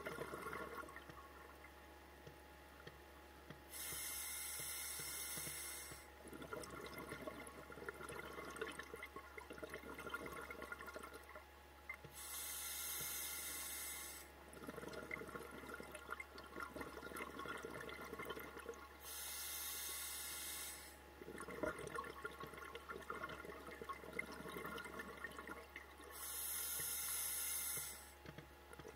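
Scuba diver breathing underwater through a regulator: four hissing inhalations of about two seconds each, about seven seconds apart, each followed by a few seconds of bubbling from the exhaled air.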